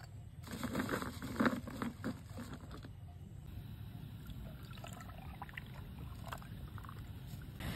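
Ice cubes clattering into a glass in the first two seconds, then milk poured from a small bottle over the ice with a soft trickle, over a steady low rumble.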